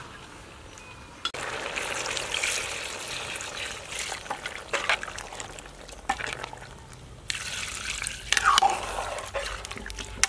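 Metal ladle stirring a liquid pork-rib curry with pineapple and onion in a steel pot: wet sloshing and stirring with scattered clinks of the ladle against the pot.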